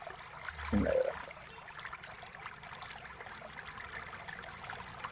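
A person taking a drink: one brief low swallowing sound about a second in, then only a steady faint hiss.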